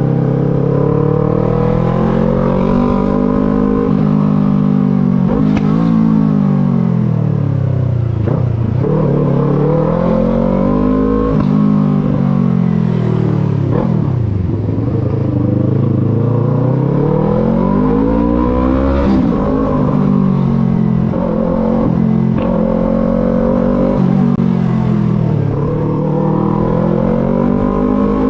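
Yamaha MT-03 motorcycle engine and exhaust under riding. The pitch rises and falls several times as the bike speeds up and slows down, with a low rumble underneath and a few brief clicks.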